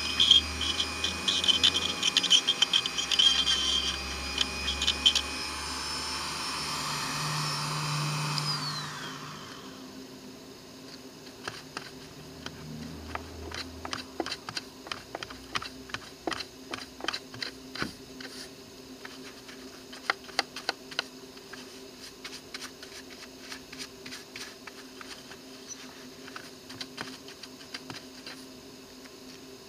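Corded Dremel-type rotary tool running at speed as its bit grinds out rotten wood, then switched off and winding down in a falling whine about nine seconds in. After that, a stiff-bristled brush scrubs debris out of the cut-out in a run of quick, scratchy strokes.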